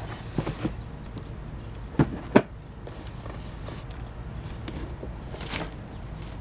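Cardboard mower box and its packaging being handled: two sharp knocks about two seconds in, with lighter clicks before them and a brief rustle of cardboard near the end.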